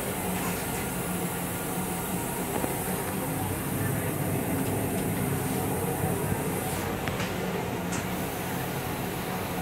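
Steady rumble and hum of a Metro-North M8 railcar heard inside its small restroom. About seven seconds in a hissing rush sets in and ends with a click a second later: the toilet flushing after its push button is pressed.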